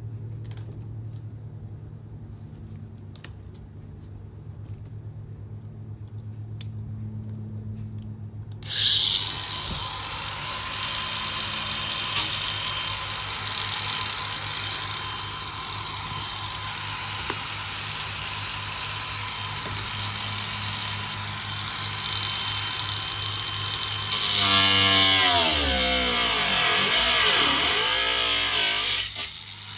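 Electric power tool cutting the sheet-metal roof of a van for a fan opening. It starts about nine seconds in, after a steady low hum, and runs with a steady whine. In the last few seconds it gets louder, its pitch sags and wavers, and it stops just before the end.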